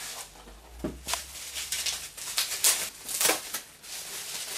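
Plastic and foam packaging rustling and crinkling as it is pulled off a telescope finder tube, with a few louder crackles.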